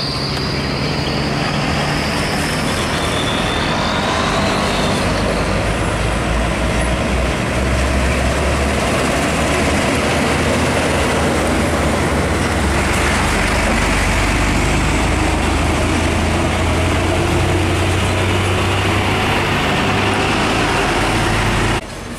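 Hino 500 truck's diesel engine running as the truck drives slowly past, a loud steady low rumble with road noise.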